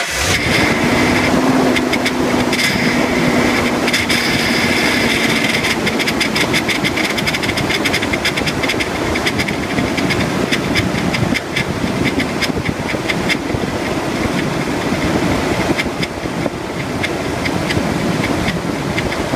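A 2008 Toyota Tundra running just after start-up. A steady whine in the first few seconds sits over rapid clattering ticks that keep going throughout. This is the power steering noise the owner is asking about; he suspects a failing power steering rack, since fluid has leaked into the tie rod boots.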